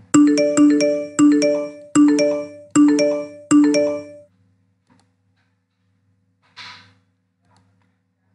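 Order-notification chimes from a web trading terminal: a rapid series of five or six chimes over about four seconds, each a few clear notes stepping upward, one for each order-status alert as the basket's option orders are placed and filled.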